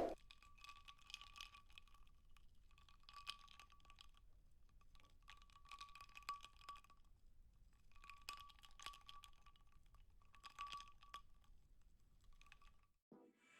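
Faint computer keyboard typing in five short bursts, about one every two and a half seconds, with a faint steady tone under each burst.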